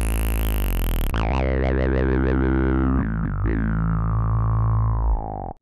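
Synth bass from ROLI Equator's 'Classic Acid Bass' preset, played on a Seaboard Block: sustained bass notes with a filter that opens bright at the start, then wobbles about five times a second. A few note changes follow before it fades and cuts off near the end.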